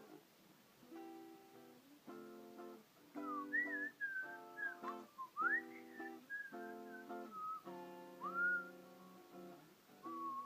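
Acoustic guitar strumming a repeating chord pattern, with a whistled melody gliding over it from about three seconds in.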